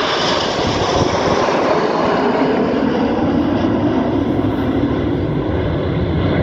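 Formation of nine Red Arrows BAE Hawk jets flying past, their engines making a steady, loud jet noise whose pitch slides down over the first few seconds as they pull away.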